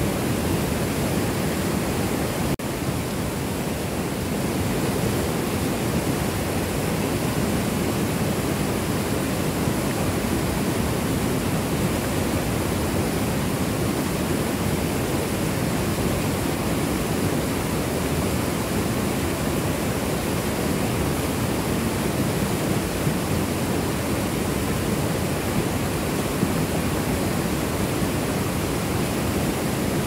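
Mountain stream rushing over boulders in small cascades: a steady, dense white-water rush with no letup.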